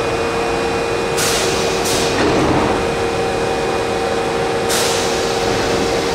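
Osaka Metro Midosuji Line subway train at an underground platform: three short hisses of compressed air released from its brakes, over a steady electrical hum and low rumble.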